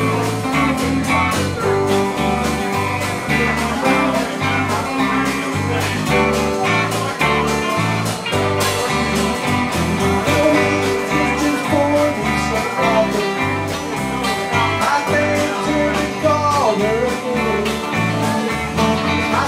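Live band playing a country shuffle: electric guitars over steadily stepping electric bass notes and a steady drum beat.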